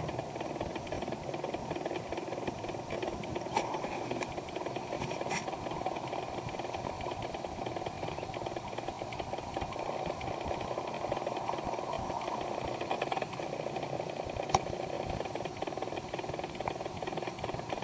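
Underwater ambient noise: a steady crackling, rattling hiss, broken by a few sharp clicks, the loudest about two thirds of the way through.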